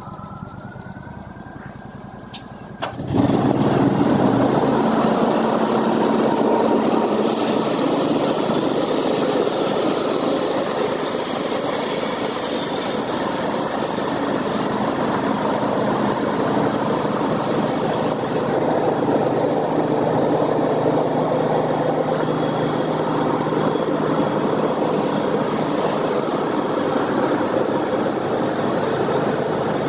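Engine-driven sawmill running: a quieter machine whine jumps suddenly about three seconds in to a loud, steady running noise that carries on.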